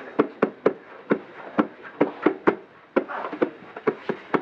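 A drum beaten in a quick, steady rhythm, about three to four strokes a second.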